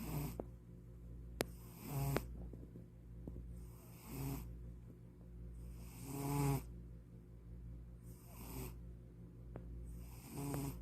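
Domestic cat snoring in its sleep, one snore about every two seconds, each a short low buzz with a breathy hiss. A single sharp click about a second and a half in.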